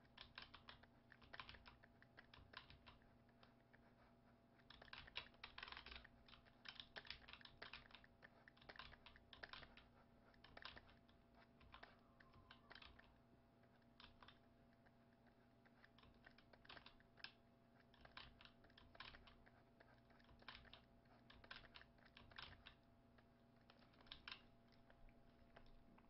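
Faint, irregular clicking and tapping of computer input while painting digitally, in quick clusters with short pauses, over a low steady hum.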